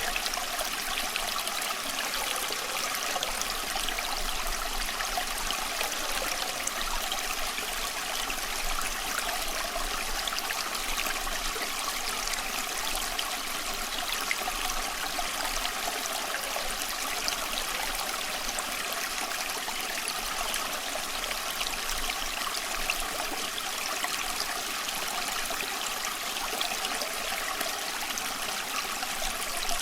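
Small stream flowing and trickling steadily, a continuous bright babble of water over stones.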